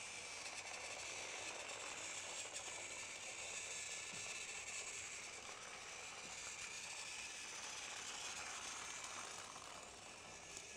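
Battery-powered Trackmaster toy train motors running on plastic track: a steady, high whirring hiss.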